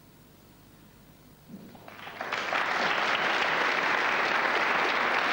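Snooker audience applauding: the clapping breaks out about a second and a half in, swells within a second, and then keeps going steadily.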